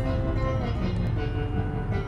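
Instrumental background music with held notes that change every half second or so, over a steady low rumble from a car.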